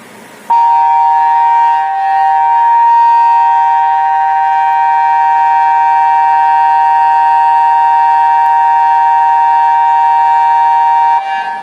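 Tsunami warning siren sounding a loud, steady two-pitch alert tone with no rise or fall, starting abruptly about half a second in and cutting off shortly before the end; a test activation of the early-warning system.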